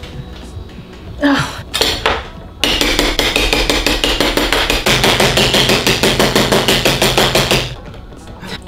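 A knife rapidly tapped against the metal lid of a glass jar, about six sharp clicks a second for some five seconds, to break the lid's vacuum seal so the jar will open.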